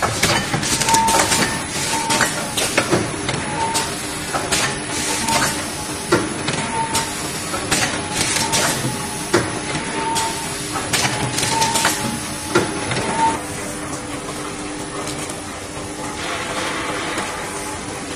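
Automatic block-bottom paper bag packing machine running: a series of sharp mechanical clicks and knocks from its moving parts over a steady machine hum, with a short beep repeating roughly once a second. The beeping stops about two-thirds of the way through and the running becomes smoother and steadier.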